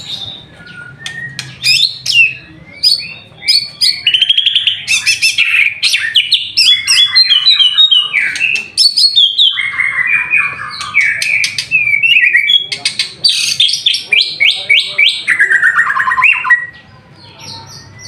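White-rumped shama (murai batu) singing a long, loud, varied song of rapid repeated notes, trills and whistles, breaking off about a second before the end.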